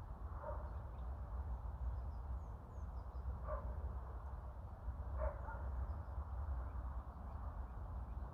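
Steady low outdoor rumble with a few short, distant animal calls and faint high chirps of small birds.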